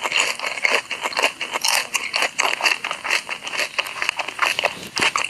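Close-miked ASMR eating sounds: rapid, irregular crunching and mouth clicks of crunchy food being chewed, several a second.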